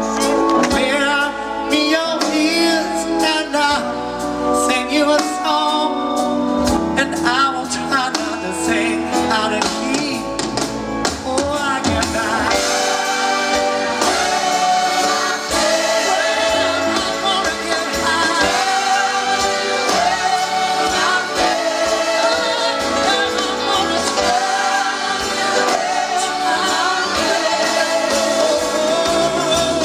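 Live rock band playing: a male lead singer with a large group of male and female backing singers over electric guitars. The sound grows fuller about twelve seconds in.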